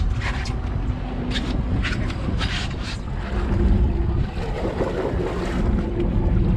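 A boat's engine running with a steady low rumble, with wind buffeting the microphone. A few sharp knocks come in the first three seconds, and a steady hum sets in about halfway through.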